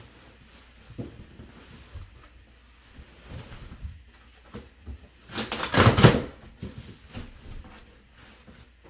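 Plastic packaging rustling as it is handled and pulled out of a cardboard box, with scattered light knocks; the longest and loudest rustle comes about five to six seconds in.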